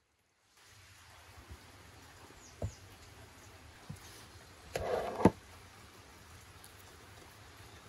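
Hands pressing a sheet of raw dough onto the rim of a clay pot: a few soft taps, then a brief rustle ending in a sharp tap about five seconds in, over a steady outdoor hiss.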